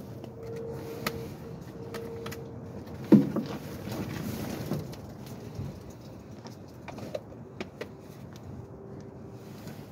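A sharp knock about three seconds in, followed by a second or so of scraping and scattered light clicks, over a faint steady hum.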